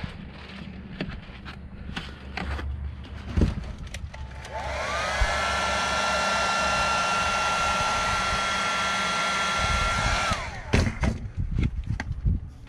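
Electric heat gun switched on about four seconds in: its motor spins up with a rising whine, then runs steadily with a rush of hot air for about six seconds before being switched off and winding down. Scattered knocks and taps of handling on the workbench come before and after.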